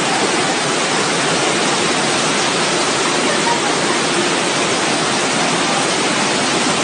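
Torrent of muddy floodwater rushing through a street: a loud, steady, unbroken rush of water.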